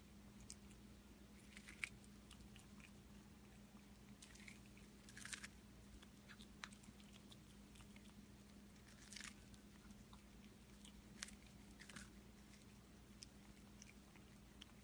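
A cat biting and chewing sweet corn kernels off the cob: faint, scattered crunches a few seconds apart, over a low steady hum.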